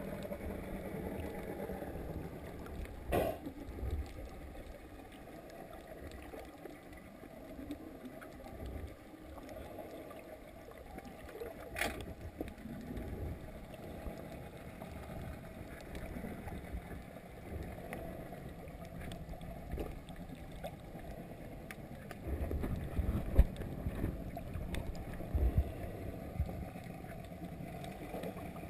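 Muffled underwater noise picked up by a submerged camera: a low, uneven sloshing rumble of water moving around it, with two sharp clicks and a few louder thumps about three-quarters of the way through.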